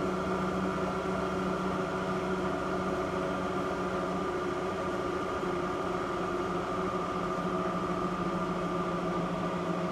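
Lagun FTV-1 vertical milling machine's spindle running in low range, a steady motor-and-gear hum with several held tones, the highest sinking slightly in pitch over the last few seconds.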